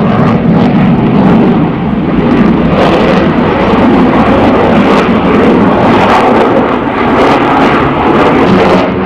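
Loud, steady jet noise from a MiG-29 fighter's twin turbofan engines as the aircraft manoeuvres overhead.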